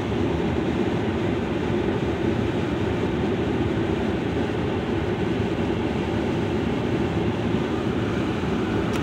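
Steady road noise inside a moving car's cabin, an even rumble with no breaks.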